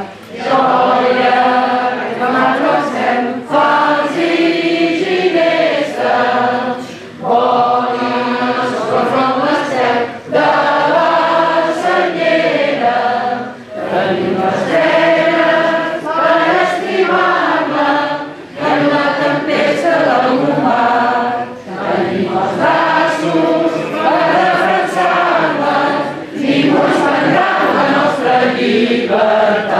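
Massed mixed choir of men and women singing a Catalan patriotic hymn. The phrases are broken every few seconds by short breaths.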